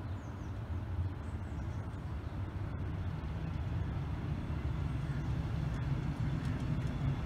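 Double-deck regional train coaches rolling past close by: a steady low rumble of wheels on the rails, growing slightly louder toward the end.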